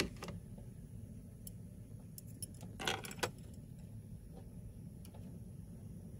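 Metal chopsticks clinking against a small stainless steel cup while sauce is stirred, with a quick cluster of sharper clinks about three seconds in, over a steady low hum.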